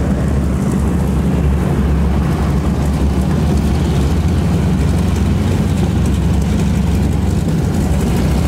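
Piston radial engine of a North American T-6 Texan trainer running at low taxi power, a steady low drone with propeller noise.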